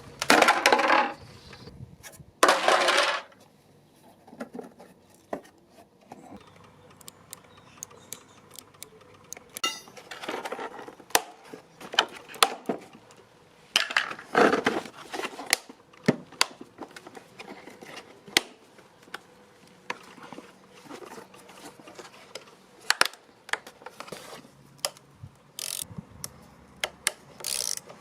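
Irregular metallic clinks, knocks and clatter of hand tools and small metal parts being handled, with a few louder bursts of rattling.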